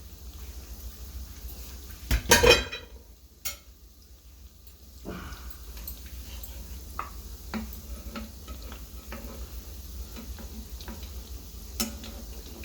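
Chicken croquettes frying in a pan: a metal clatter about two seconds in as the pan lid comes off, then light sizzling with many small taps and scrapes of a utensil checking them in the pan.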